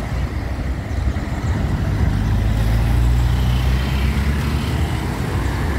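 Road traffic driving past close by, cars, a bus and a box truck, with a steady low engine and tyre rumble that swells about two seconds in and eases off again near the end.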